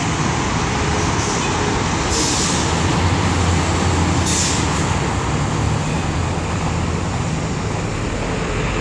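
Steady road-traffic noise with a rubber-tyred electric monorail train passing on its elevated beam; a low hum swells in the middle, and two short hisses come about two and four and a half seconds in.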